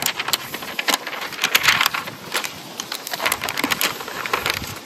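A laptop's protective paper-like wrap and white cardboard box being handled as the laptop is unwrapped and lifted out: rustling and crinkling with many scattered light clicks and taps.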